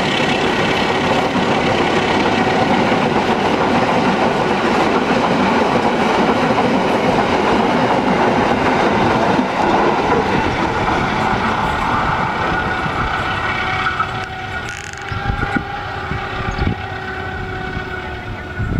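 Passenger train coaches rolling past at speed, a dense steady rumble and rattle of steel wheels on rail. It eases off after about fourteen seconds as the last cars pull away, leaving a few separate wheel knocks over the rail joints.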